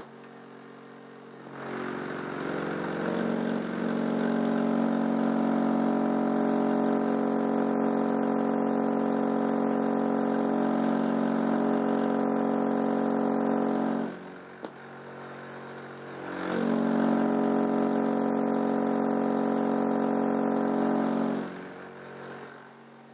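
Crossfire C3 12-inch subwoofer in a sealed box, driven by an amplifier with a steady low test tone. It is pushing air to spin the second subwoofer as a voltage generator. The tone plays for about twelve seconds, stops, then plays again for about five seconds.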